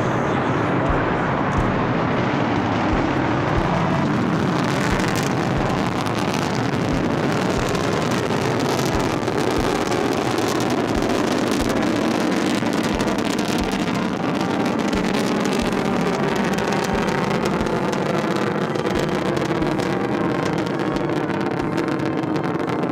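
Rocket engines of a crewed Soyuz launch, a loud steady roar, with wind buffeting the microphone.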